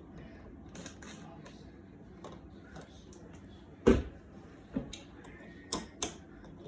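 Scattered plastic clicks and taps as a decorative wall plate is handled and fitted over rocker light switches, with one sharper knock and thud about four seconds in and a few quicker clicks after it.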